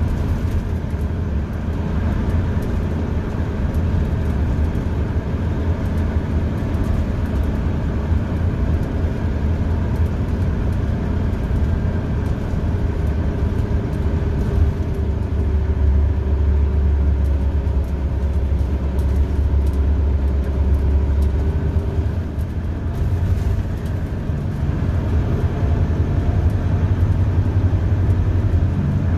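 Interior of a 2001 Orion V transit bus on the move: its Detroit Diesel Series 50 EGR four-cylinder diesel engine, driving through an Allison B500R6 automatic transmission, makes a steady low drone. The drone grows heavier for several seconds around the middle, and a humming note above it drifts in pitch as engine speed changes.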